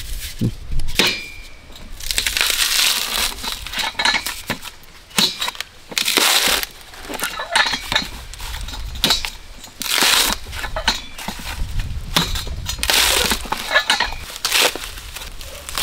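Coconut husk being torn off on a metal spike dehusker: the fibrous husk crunches and rips in rough bursts every second or two as it is pried away in strips.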